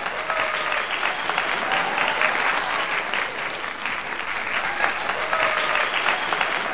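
Crowd applause: dense, steady clapping from many hands.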